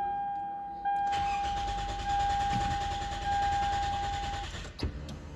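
Lexus GS300 engine cranking on its starter with a steady whine and never firing, until the starter cuts off about four and a half seconds in with a click. This is a crank-no-start, blamed on an engine immobilizer fault (code B2799) that keeps the engine from running.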